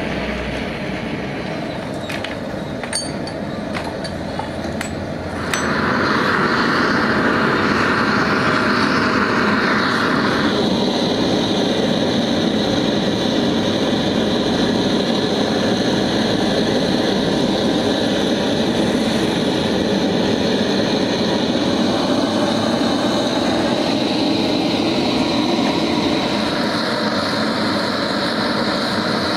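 Gas torch flame burning with a steady rushing hiss, used to melt lead and join a battery's inter-cell connector. A few light metal clicks come first, and the hiss starts about five seconds in.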